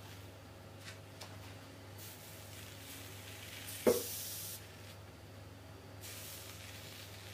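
Hot steel hatchet blade sizzling and hissing as it is pressed into marshmallows. About four seconds in there is a sharp knock as the blade comes down on the plate, followed by a second of hiss, and a softer hiss comes again near the end.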